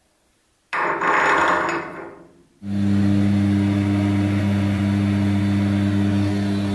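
A loud rushing noise starts suddenly about a second in and fades away over a second and a half; then a metal-cutting band saw starts and runs with a steady hum, its blade cutting through a steel bolt near the head.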